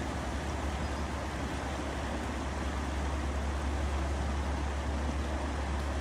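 Shallow, fast river rushing steadily over a rocky bed, a constant even wash of water with a deep steady rumble underneath.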